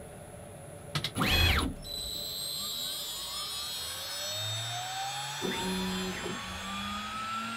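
CNC router starting its job. About a second in there is a click and a short burst of noise, then the spindle whine comes up and keeps rising slowly as the motor spins up toward its 12,000 rpm cutting speed. From the middle on, the axis drive motors hum in steady tones that step up in pitch as the gantry moves the cutter into position.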